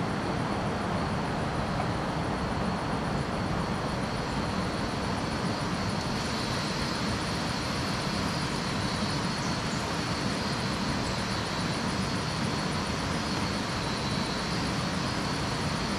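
Steady rushing of a swollen, flooded river, an even unbroken roar of water.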